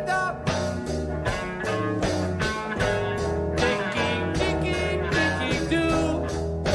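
Rock music with a steady drum beat, bass and guitar.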